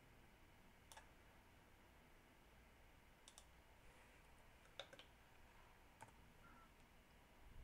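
Near silence with a few faint, scattered computer-keyboard clicks as a terminal command is typed.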